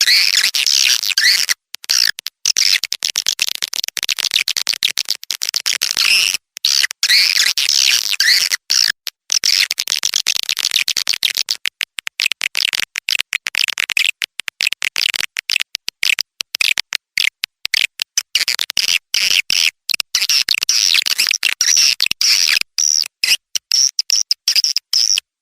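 Dense, rapid twittering and chirping of edible-nest swiftlets: a swiftlet call recording used as a lure to draw the birds into a nesting house.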